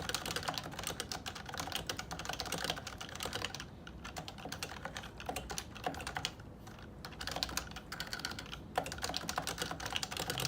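Steady fast typing on a Topre electrostatic capacitive keyboard: a dense stream of soft keystrokes, with brief let-ups around four and seven seconds in.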